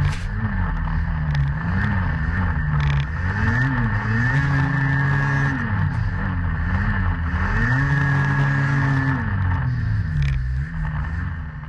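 Snowmobile engine revving up and down over and over, its pitch climbing and falling roughly once a second, with a few longer stretches held high; it fades near the end.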